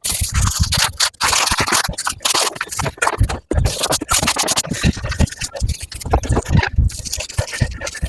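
Scrubbing on the painted steel of a Bilco basement door with Bar Keepers Friend cleanser: an irregular run of rasping strokes, with short breaks about a second in and again about three and a half seconds in.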